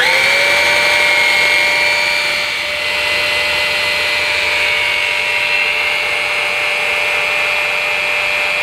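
Numatic Quick cordless bagged vacuum cleaner running with its motorised power head, the brush roll spinning. Its pitch rises as it spins up at the very start, then it holds a loud, steady whine over a rushing hiss.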